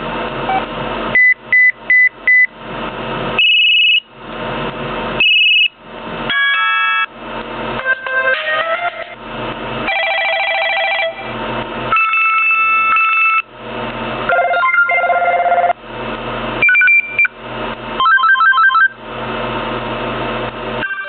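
LG enV Touch phone's built-in ringtones played one after another through its speaker: a string of short electronic beeps and little melodies, each lasting a second or two before the next one starts. It opens with a few quick high beeps.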